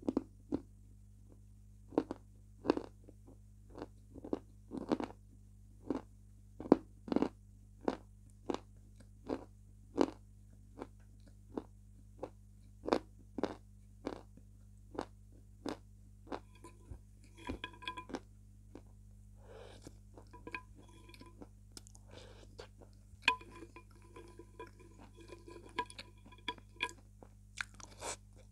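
Close-miked eating of soft white chunks soaked in milk: wet chewing and sharp mouth smacks about once or twice a second, thinning out and getting softer in the second half.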